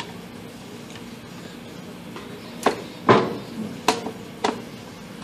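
Hands working a dirt bike's airbox and rubber intake boot back into place: four sharp clicks and knocks in the second half, one a little past three seconds louder and longer than the rest, over a faint steady hum.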